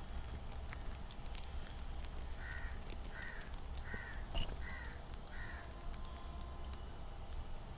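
Guinea pigs chewing leafy greens right at the microphone: a steady run of small crisp crunching clicks. A crow caws five times in the background, a little under a second apart, starting about two and a half seconds in.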